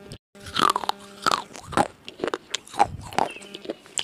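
Close-miked crunchy biting and chewing of a hard, brittle piece, a quick run of sharp crunches one after another.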